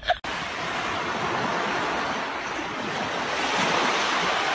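Steady rush of ocean surf breaking on a beach.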